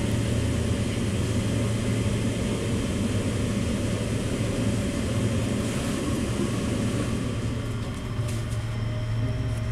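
Steady rumble and low hum of a moving electric commuter train, heard from inside the carriage, with a few faint clicks near the end.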